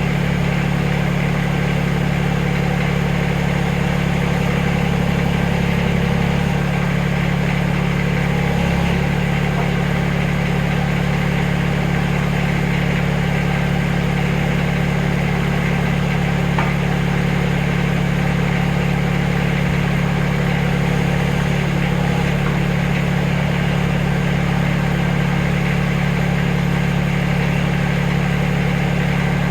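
Backhoe engine running steadily at a low idle, its note shifting up briefly twice in the first ten seconds.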